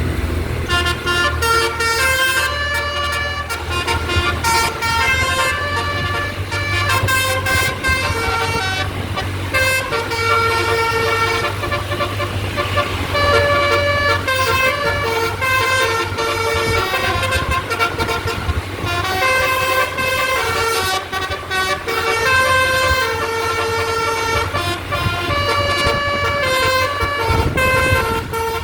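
Basuri, a bus's musical 'telolet' air horn, playing a melody of held horn notes that change pitch every second or so, over a steady low hum.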